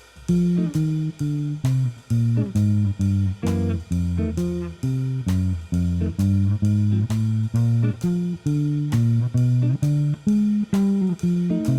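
Outro music: a blues walking-bass line on guitar, plucked notes stepping along at an even pace.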